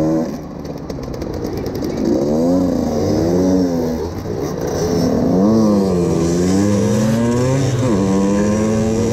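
Several small 50cc motorcycle engines revving and accelerating together, their pitches rising and falling over one another. Near the end one engine climbs sharply and then holds a steady high note.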